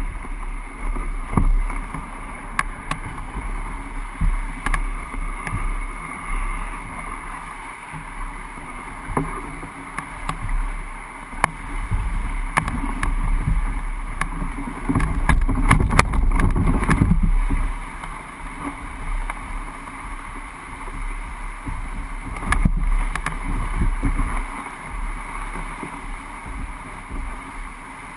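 Old Town Pack Angler canoe hull being dragged over grass and rough ground: a continuous scraping rustle and low rumble with many scattered knocks and bumps, heaviest about halfway through.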